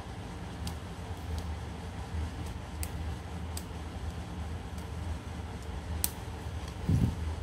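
Scattered sharp clicks of a small screwdriver prying at the metal keyboard plate and its plastic clips in an Asus X441BA laptop's top case, over a steady low hum, with a dull thump near the end.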